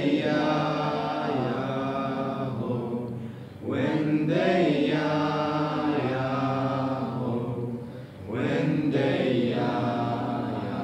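Voices chanting a mantra in long sung phrases, a new phrase starting about every four and a half seconds, over a steady low drone.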